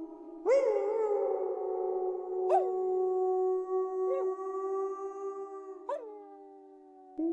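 Several wolves howling together: long, overlapping howls held at different pitches, each new one starting with a short upward swoop, about four times through. The chorus fades near the end and a fresh howl comes in just before it ends.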